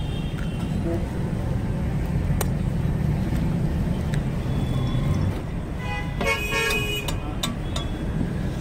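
Steady low rumble of street traffic, with a vehicle horn honking for about a second, roughly six seconds in. A few light clicks along the way.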